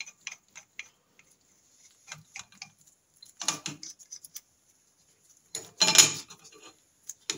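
Scattered metallic clicks and clinks as a steel clutch spring compressor tool is handled and threaded into the centre of a Norton Commando diaphragm-spring clutch pressure plate. A louder metal knock comes about six seconds in.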